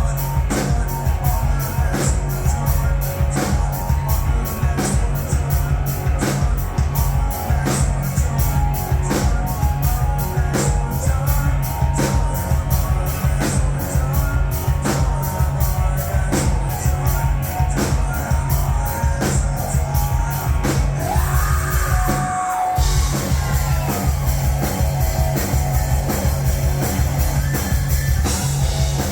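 Rock music with a driving drum-kit beat and heavy bass; the bass drops out for about a second roughly three-quarters of the way through.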